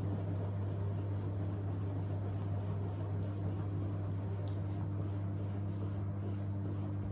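AEG Lavamat washing machine running, its drum motor giving a steady low hum with an even whir over it.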